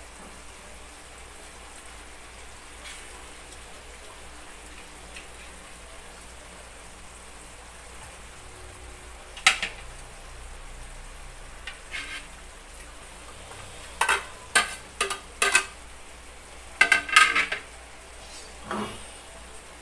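Laing simmering and sizzling faintly and steadily in coconut milk in an aluminium wok. From about halfway in come sharp clinks and clatters of dishes and a utensil, loudest near the end, as sliced green chilies are tipped into the pan.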